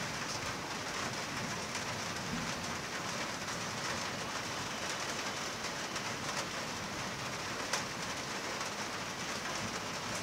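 Heavy rain falling: a steady, even hiss, with one faint click a little past the middle.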